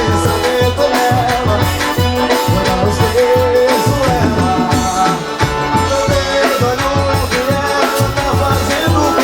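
Live forró band playing an instrumental passage: sustained accordion melody over a steady thumping bass beat and a shaker-like rattle.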